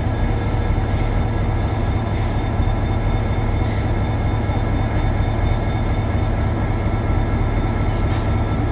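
Irish Rail 071-class diesel locomotive 081 idling close by: its EMD 12-645 V12 two-stroke engine gives a steady low drone with a whine on top. A short hiss of air comes about eight seconds in.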